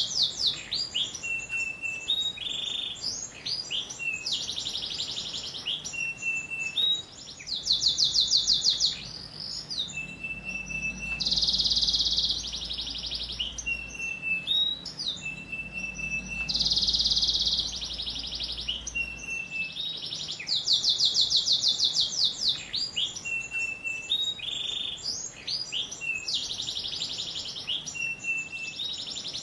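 Domestic canary singing a long, continuous song: fast rolling trills, short steady whistled notes, and two loud buzzy passages near the middle.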